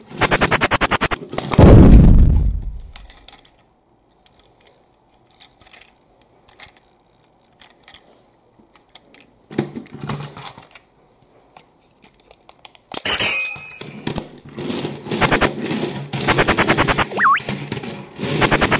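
Light plastic clicks and knocks from a toy train tender being handled, between a rapid, evenly ticking sound at the start and end and a loud falling low boom about two seconds in.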